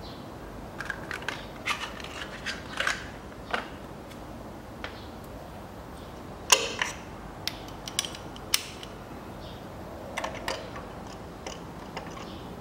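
Scattered metal clicks and clinks of a spark plug socket and extension being handled and fitted down into a spark plug well, the sharpest click about halfway through.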